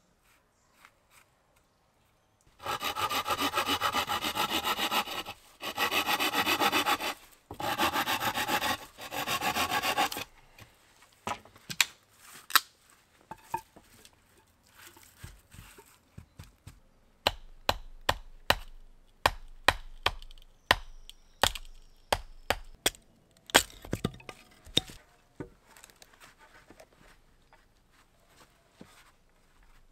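Hand saw cutting through a wooden pole in about four quick bouts of back-and-forth strokes. These are followed by a run of sharp wooden knocks and clacks, coming about twice a second in the second half.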